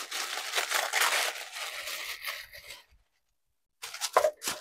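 Crinkling and rustling of packaging as hands rummage through the box, dense for about three seconds and then stopping, with a few short rustles near the end.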